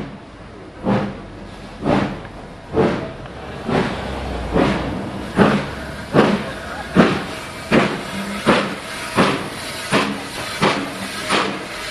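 LSWR Beattie well tank 30587 steam locomotive working hard as it gets a train moving on a steep gradient, its exhaust beats sharp and even, quickening from about one a second to about one and a half a second.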